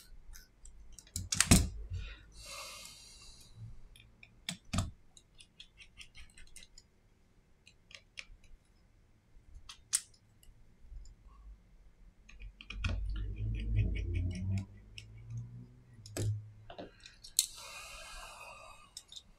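Small clicks, taps and short scraping sounds of tweezers, a screwdriver and smartphone parts being handled during disassembly, with a few sharp clicks scattered through.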